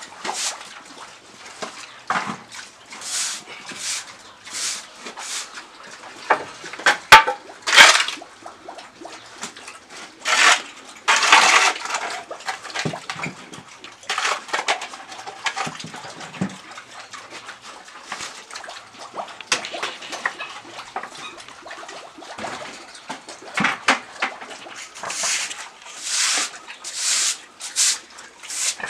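A broom sweeping and a spade scraping pig dung across a sty floor, in many irregular strokes, with a sharp knock about seven seconds in.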